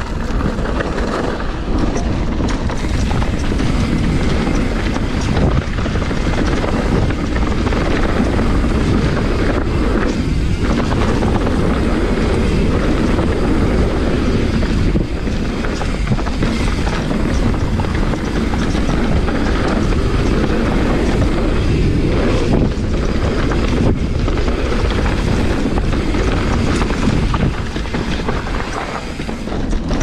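Mountain bike riding down a dirt trail: wind rushing over the camera's microphone with a low rumble from the tyres and frequent small rattles and knocks from the bike over rough ground.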